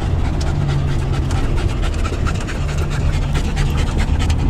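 A dog panting with quick, rapid breaths over the steady drone of a van's engine and road noise inside the cabin.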